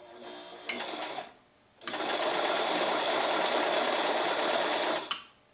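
Electric household sewing machine stitching under foot-pedal control: a short first run, a brief stop, then about three seconds of steady running that stops abruptly. It shows a little hesitation when the pedal is first pushed.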